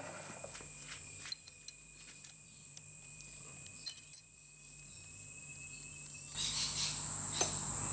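Faint clicks and light scraping as metal swarf is brushed off a milling fixture and a small steel clamping jaw is lifted out of it, under a steady high-pitched whine. About six seconds in, a louder hiss with a low hum comes in.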